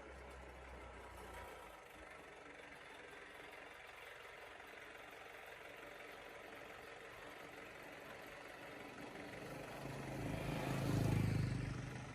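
A motor vehicle's engine running behind a steady background hiss, swelling louder about ten seconds in and easing off just before the end.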